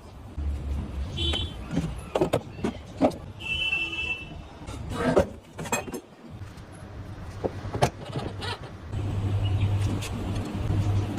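Toy remote-control car being handled: scattered plastic clicks and knocks, two short high electronic beeps in the first few seconds, and a steady low hum that returns about nine seconds in.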